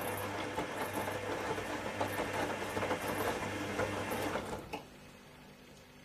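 Zanussi ZWF 1621 W front-loading washing machine during a rinse: a steady rush of water and machine noise over a low hum, which cuts off abruptly a little before five seconds in, leaving only a faint hum.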